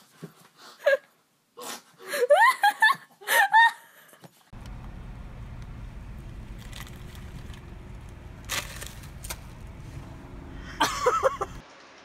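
Short bursts of laughter and excited voices, then a steady low rumble inside a car cabin with the window open, a brief voice over it near the end before it cuts off.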